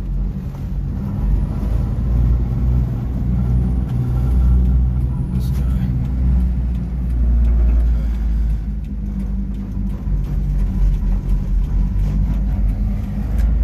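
Subaru Sambar 4WD mini truck driving, its small engine running under a steady low rumble and drone from its R1 tractor-tread tires on the road.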